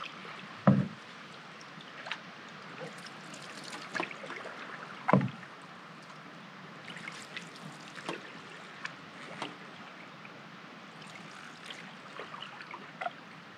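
Canoe paddle strokes in lake water: water trickling and dripping off the blade, with small splashes and two louder gulping plunges about a second and five seconds in.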